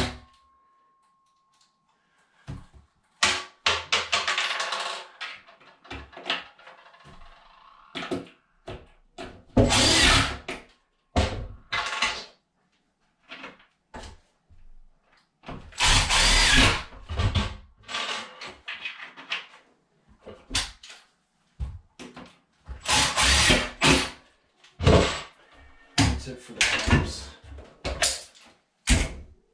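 Cordless drill driving screws that join two cabinet boxes together through their clamped side panels, in several short runs of a second or two with pauses between.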